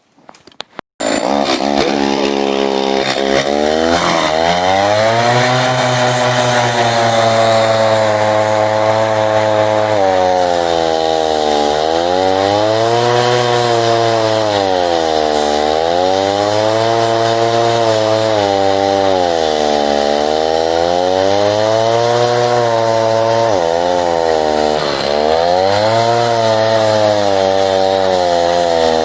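Chainsaw starts running about a second in and runs on. Its engine pitch sags and recovers in repeated waves, every two to three seconds, as it bites into wood and eases off.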